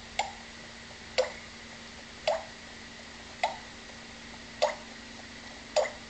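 African grey parrot making a short clicking pop with its mouth, six times at roughly one-second intervals.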